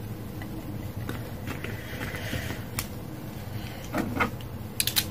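Faint handling noises: a few small clicks and a soft rustle, with a brief low vocal sound about four seconds in and a quick cluster of clicks near the end.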